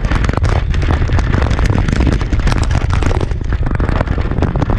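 Onboard sound of a Traxxas electric RC truck rolling over rough, cracked asphalt: a loud low rumble with dense irregular crackling and rattling from tyres and chassis, and wind buffeting the camera microphone.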